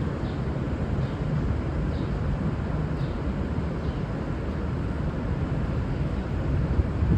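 V/Line VLocity diesel railcars running, a steady low rumble with no horn sounding.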